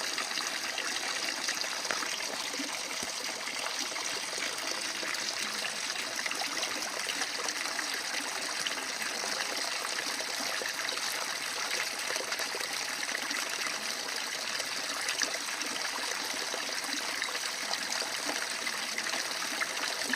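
Water flowing and trickling steadily, a constant splashing rush.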